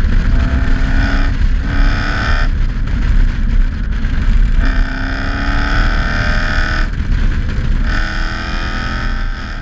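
Toyota 1UZ-FE V8 engine pulling while driving, heard from the rear of the car: its note rises slowly through four stretches with short breaks between. Heavy wind and road rumble sit underneath throughout.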